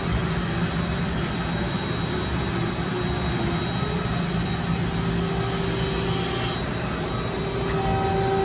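Ermaksan CNC hydraulic press brake's hydraulic power unit running, a steady machine hum with no sharp impacts.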